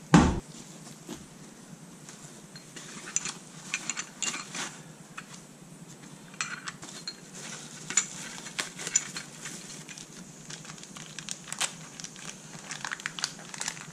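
A single knock right at the start, then light crinkling of packing paper and a plastic bag, with small clicks and clinks of metal parts and tools being handled on a workbench.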